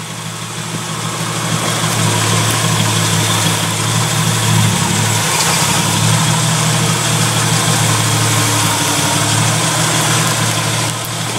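Jeep Wrangler YJ engine running at low revs as the Jeep crawls over rocks on a rutted dirt trail, growing louder over the first few seconds as it approaches, then holding steady.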